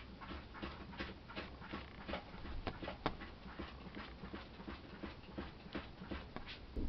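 Exotic Shorthair kitten's paws patting and scrabbling on a quilted fabric cushion as it plays: a run of soft, irregular taps, about two or three a second.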